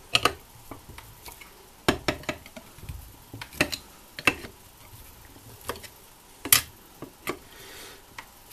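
Metal hand tools clinking and tapping against the cast-aluminium crankcase of a Simson moped engine, a handful of sharp, irregular clicks with pauses between them.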